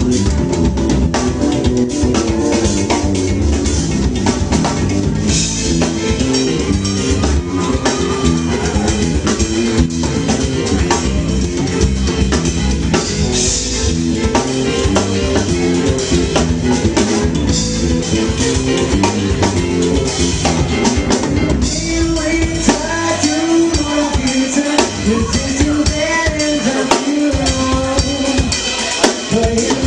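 Live soul/R&B band playing, driven by a drum kit with bass and electric guitar. About two-thirds of the way in the low end drops back and a wavering melodic line comes forward over the band.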